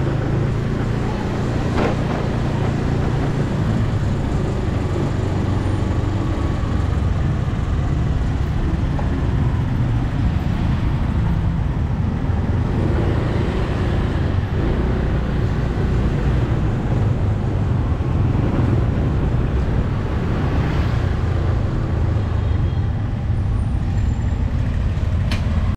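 Steady street traffic: engines of passing vehicles running with a continuous low rumble, swelling now and then as one goes by.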